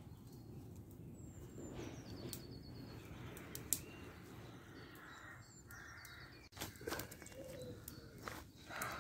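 Woodland birds calling and singing, with occasional sharp clicks and pops from a burning wood campfire, the loudest pop about four seconds in.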